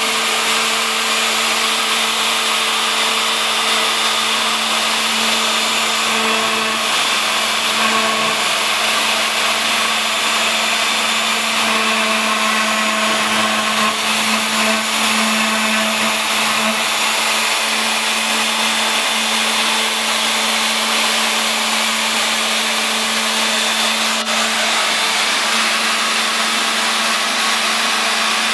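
Home-built CNC machine cutting a logo, its spindle motor running steadily under load with a constant hum and a dense hiss over it.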